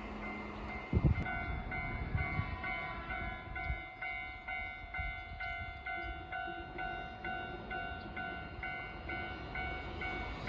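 Japanese level-crossing warning bell ringing in an even, rapidly repeating electronic ding, over a low rail rumble, with a low thump about a second in.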